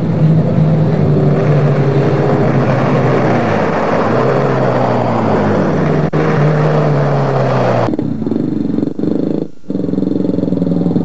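An off-road racing buggy's engine coming up and passing close on a dirt road, the rush of tyre and gravel noise swelling as it nears and the engine note dropping in pitch as it goes by. About eight seconds in the sound changes abruptly to a steadier, more distant engine drone.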